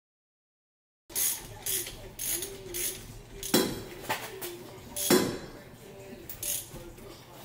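Hand ratchet wrench clicking in short runs of strokes as bolts on the rear differential are worked, starting about a second in.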